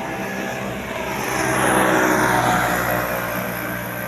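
A bus driving past with its engine running, swelling to its loudest about two seconds in and then easing off.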